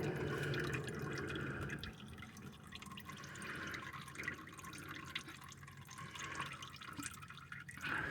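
Engine oil trickling and dripping into a drain pan as the old oil filter comes off; the trickle fades within the first couple of seconds into faint scattered drips.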